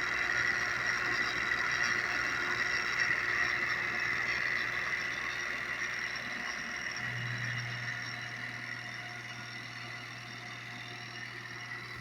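Kawamoto N3-256SHN well pump's electric motor running with a steady high whine over a low hum; this is the abnormal running noise noted on this junk unit. It grows somewhat quieter over the second half.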